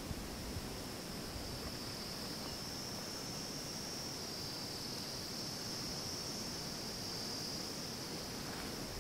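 Insects chirring in one steady, high-pitched drone that wavers slightly in pitch, over a faint even hiss.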